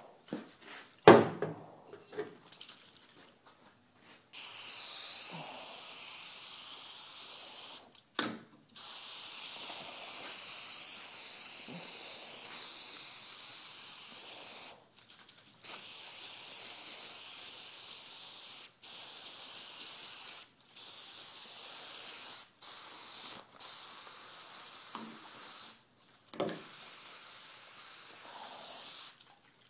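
Aerosol spray paint can hissing in a series of long sprays, each lasting a few seconds, with brief breaks between them. Before the spraying begins, about four seconds in, there are some knocks and clicks.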